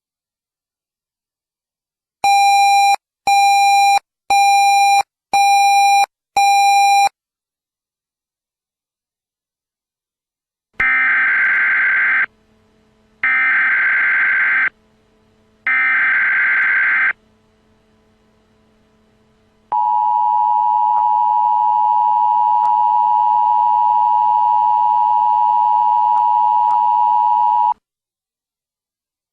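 Emergency Alert System tones: five short electronic beeps, then three bursts of the digital SAME header (a harsh, buzzy warble) a second apart, then the two-tone EAS attention signal held steady for about eight seconds. The sequence announces a child abduction emergency (Amber Alert) broadcast.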